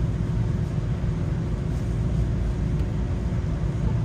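Steady low rumble of a Nagasaki Electric Tramway streetcar, with a faint steady hum above it.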